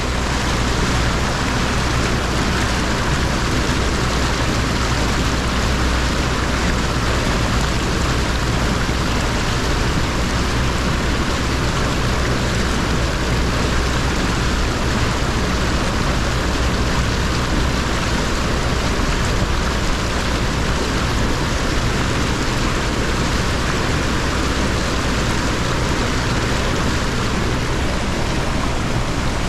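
All-terrain vehicle driving, its engine and running gear making a steady, even noise with a low hum underneath.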